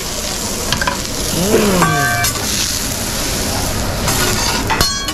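Food sizzling steadily on a hibachi flat-top griddle, with a short vocal 'ooh' that rises and falls about a second and a half in. Metal spatula clinks ring out twice, about two seconds in and near the end.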